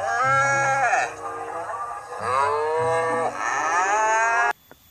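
Water buffalo mooing twice: two long, loud calls, the second a little longer, each dropping in pitch as it ends.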